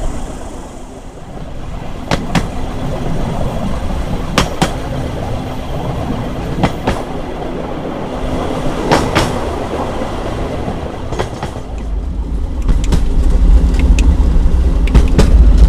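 Open rail cart running along the track: a steady rolling rumble with sharp clicks in close pairs about every two seconds as the wheels cross the rail joints. Near the end a much louder low rumble takes over.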